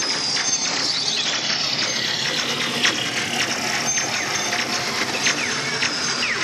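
Buzz Lightyear dark-ride laser blasters being fired: rapid trigger clicking mixed with electronic zap and target-hit sound effects, one falling in pitch about a second in and several short ones near the end, over a steady din of ride noise.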